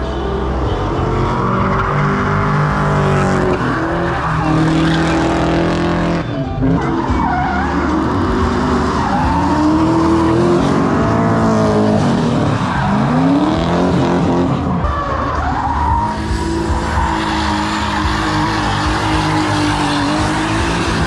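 Drift cars sliding through a corner at close range: engines revving hard, their pitch rising and falling several times as cars come through, over the screech of tyres sliding sideways.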